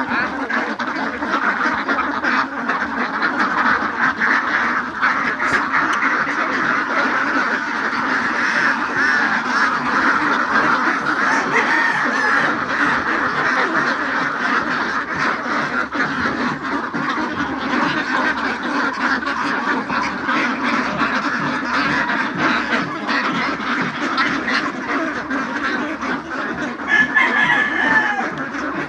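A large flock of domestic ducks quacking continuously, many calls overlapping at once.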